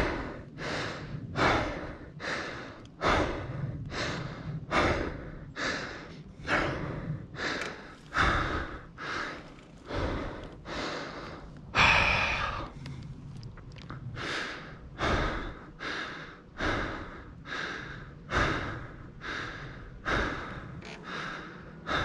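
A cyclist breathing hard and fast right at a chin-mounted camera's microphone, a steady rhythm of breaths in and out about every two-thirds of a second, from the effort of pedalling a mountain bike uphill. One breath about twelve seconds in is sharper and louder.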